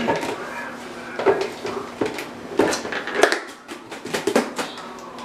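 Kitchen clatter: a string of separate clinks and knocks of dishes, pans and utensils being handled, about half a dozen over a few seconds.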